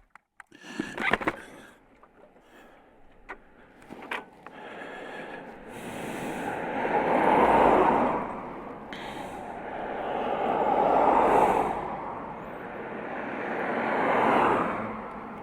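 A motorcycle engine cuts off, followed by a few clicks and knocks. Then three vehicles pass one after another on the road, their tyre and engine noise each swelling up and fading away over a few seconds.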